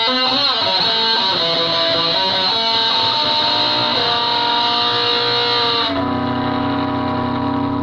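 Electric guitar played through distortion: bent single notes and sustained notes, then about six seconds in it settles into a held, droning low chord.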